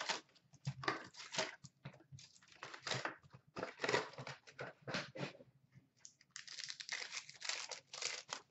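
Upper Deck SP Authentic hockey card packs being ripped open by hand: the wrappers crinkle and tear in irregular bursts, with the card stock rustling as it is pulled out.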